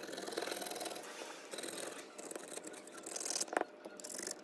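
A thin metal blade scraping along a Samsung Galaxy A8 Plus's metal mid-frame in rapid scratchy strokes, working off the tape and pad stuck to it. A sharp click comes about three and a half seconds in.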